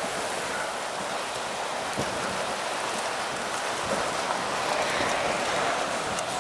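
Steady hiss of wind and rain, with a few faint ticks.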